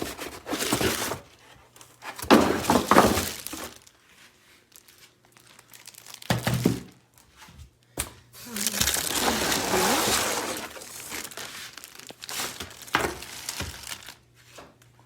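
Packaging and vacuum accessories being handled: plastic and cardboard crinkling and clattering in several irregular bursts, the longest in the middle.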